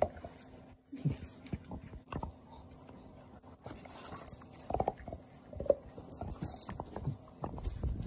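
A dog gnawing on a hard chew bone: irregular clicks and scrapes of teeth on the chew, with a few louder bites.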